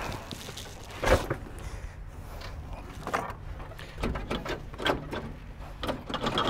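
Mahindra Arjun Novo 605's turbo diesel engine, its fuel pump modified, idling with a steady low hum. Several short clunks and knocks sound over it at intervals.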